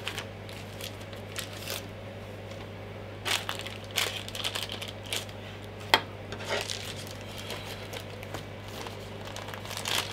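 Clear plastic accessory bags crinkling and rustling as they are handled, with scattered clicks of small metal parts set down on a tabletop; one sharp click about six seconds in.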